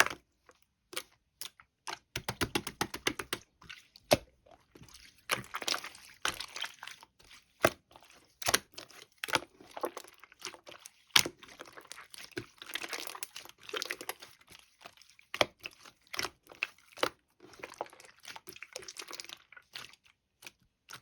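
Close-up crinkling and crunching with many sharp clicks, and a fast run of taps about two seconds in.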